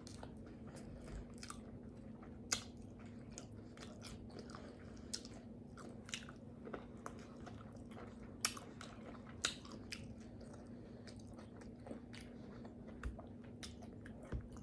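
Close-miked chewing and biting of tacos: scattered wet smacks and clicks of the mouth, some sharper and louder than others, over a faint steady hum.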